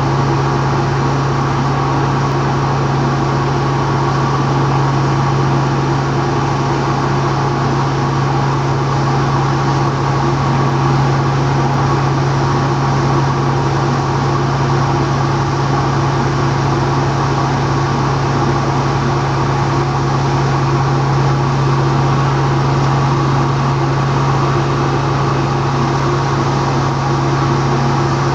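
A boat's engine running steadily at a constant speed: a loud, unchanging drone with a low hum and higher whining tones over it.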